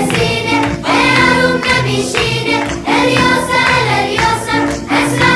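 Background music with singing over a steady, repeating rhythm.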